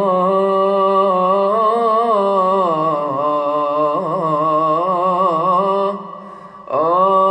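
A man's voice chanting the opening melodic formula (the 'key') of maqam Hijaz, in Quranic-recitation style. It is one long held phrase with ornamented turns about the middle, breaking off a little before six seconds in, and a new phrase starts near the end.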